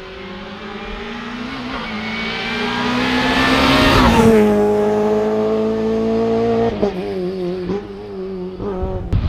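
Renault Clio rally car's engine at high revs, rising in pitch and growing louder as it approaches and passes close about four seconds in, then holding a steady note as it draws away. The note breaks and drops about seven seconds in.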